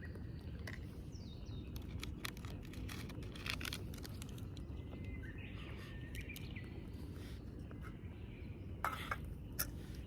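Outdoor morning ambience: a steady low rumble with birds chirping now and then, and scattered light clicks and knocks, including two sharper ones near the end.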